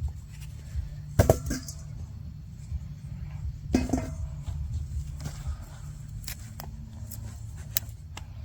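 Hands digging through container soil and handling harvested potatoes: a few sharp knocks and rustles, the clearest about a second in and near the middle, over a steady low rumble.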